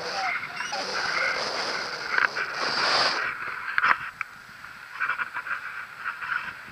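Airflow rushing over an action camera's microphone in paraglider flight: a rushing hiss that surges in the first half, then a click and a run of short crackles near the end.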